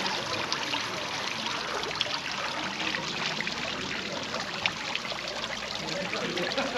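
Steady trickling of running water, a dense patter of small splashes with no pauses.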